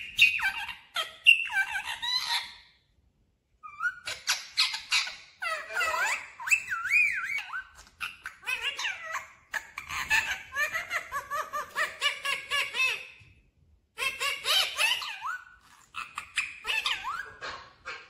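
Indian ringneck parakeet chattering in high, speech-like squeaky phrases with laugh-like calls, in several runs broken by short pauses.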